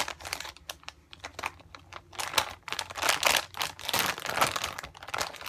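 Plastic squishy packaging crinkling and rustling as it is handled, in quick irregular crackles.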